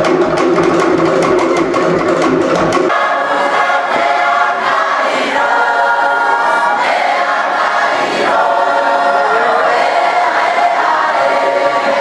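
Cook Islands drum music with rapid wooden slit-drum beats, cut off about three seconds in by a choir of children and adults singing together.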